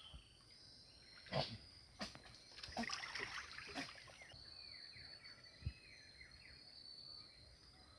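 Faint water splashes and a few knocks as a fishing net is hauled and handled beside a canoe, over a steady insect drone and some animal calls from the flooded forest.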